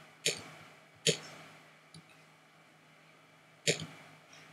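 Computer mouse button clicks: single sharp clicks, two about a second apart, a faint one, then a pair near the end, each with a short fading tail.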